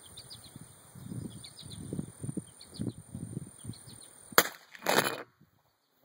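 A single shot from a Taurus Tracker 990 nine-shot .22 LR revolver about four and a half seconds in, a sharp crack. Half a second later comes a longer, loud burst of noise, after which the sound drops out almost entirely.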